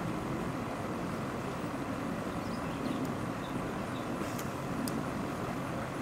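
Steady outdoor background noise, an even rumble and hiss, with a few faint short chirps a little before halfway and two light clicks about four and five seconds in.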